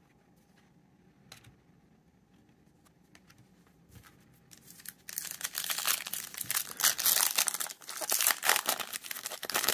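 A foil trading-card pack being torn open and its wrapper crinkled, starting about halfway through and continuing loudly in irregular crackles. Before that only a few faint taps of cards being handled.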